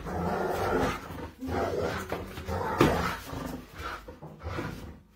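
A dog growling in repeated rough bursts as it lunges and bites at a machete blade.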